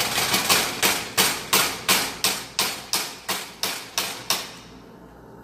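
A kitchen utensil knocking hard on a hard surface in a quick, even series, about three knocks a second and more than a dozen in all, stopping about a second before the end. The knocks come as butter is being added to a pot.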